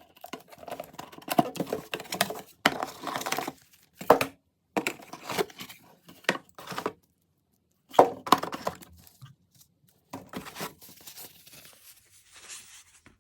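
Packaging of a new camera being opened by hand: tearing, crinkling of wrapping and handling of the box. It comes in irregular bursts of rustling with sharp clicks, broken by short pauses.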